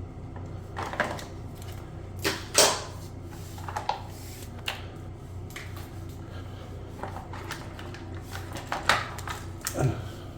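Bidet parts being handled during disassembly: scattered clicks, knocks and scrapes of hard plastic pieces, the loudest knock about two and a half seconds in and another cluster near the end, over a steady low hum.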